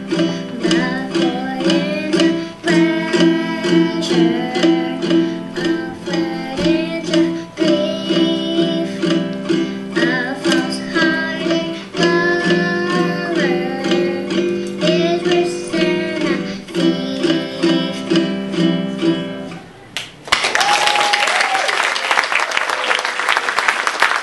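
A child singing to her own strummed ukulele, the song ending about 20 seconds in. Audience applause follows, running on to the end.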